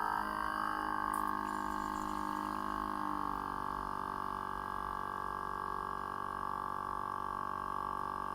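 Portable capsule espresso maker's pump running steadily as it pushes water through the capsule, a constant hum whose pitch settles about three seconds in.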